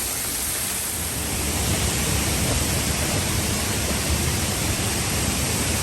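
Steady rushing of falling water, an even hiss with a heavier low rumble.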